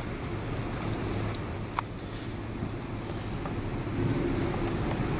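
Steady low hum of idling vehicle engines, with a few light metallic clicks and jingles in the first two seconds.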